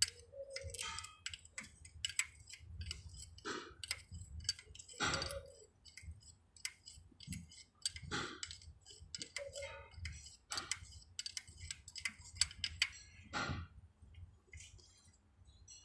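Irregular light clicks and taps, several a second with uneven gaps, from hand work with tools.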